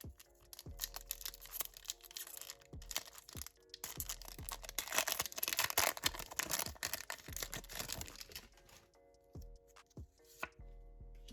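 Pokémon booster pack wrapper being torn open and crinkled by hand, the rustling loudest in the middle and dying away near the end, over background music.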